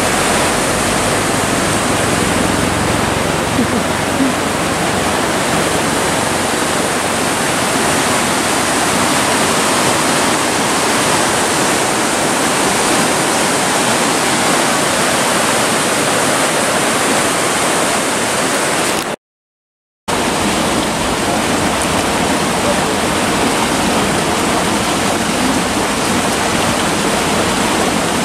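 Rushing water of a rocky stream running over boulders and small cascades, a steady, loud noise. It drops out briefly about nineteen seconds in, then carries on as before.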